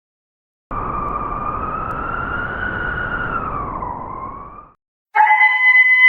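Storm wind howling: a wavering whistle over a rushing noise that rises a little, dips and cuts off abruptly, then a second, higher, several-toned howl starts about a second later.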